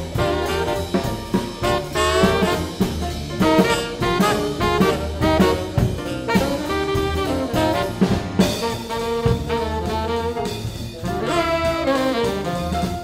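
Swing band playing live: trumpet, trombone and saxophones over piano, upright bass and drum kit, with a steady swing beat.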